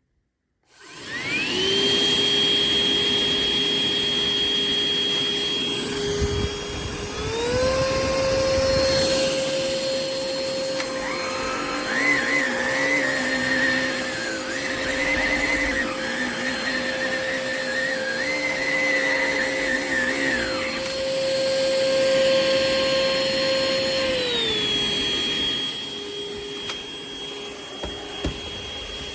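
Hoover ONEPWR Evolve Pet Elite cordless stick vacuum switched on, its motor spinning up to a steady whine. About a quarter of the way in it steps up to a higher-pitched whine, the sign of a higher power setting, then drops back to the lower whine near the end. Through the middle a second, wavering tone rides on top.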